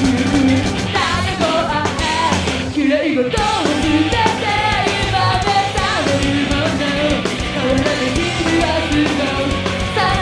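Live industrial metal: a female vocalist singing over distorted electric guitar and drums, with a brief break in the band about three seconds in.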